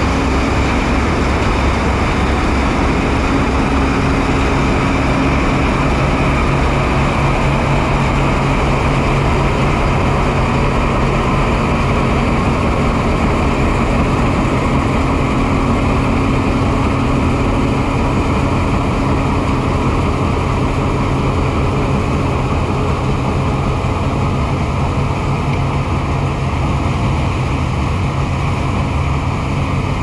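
Large farm machine engine running steadily, its note dropping slightly a few seconds in.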